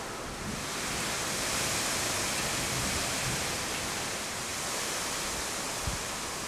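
Heavy thunderstorm rain pouring down as a steady hiss that swells about half a second in, with a soft low thump near the end.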